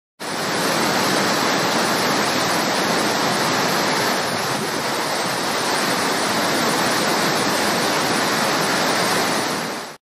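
Steady rush of a waterfall's falling water, with a slight dip about four seconds in; it starts abruptly and falls away just before the end.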